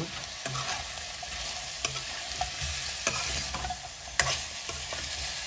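Metal spoon stirring sliced onions and pork pieces in a metal karahi over a steady frying sizzle, with several sharp clinks of the spoon against the pan, the loudest about four seconds in. The onions have just gone into the pork, whose boiling water has dried off, and are starting to fry.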